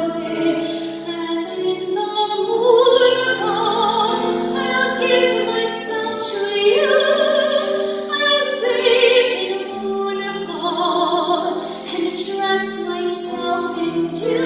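A woman singing in a classical soprano style with vibrato, long held notes, accompanied by a Steinway grand piano.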